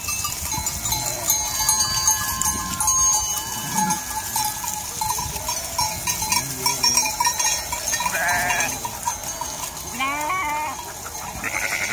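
A large flock of sheep with bells ringing steadily, several sheep bleating loudly in the second half.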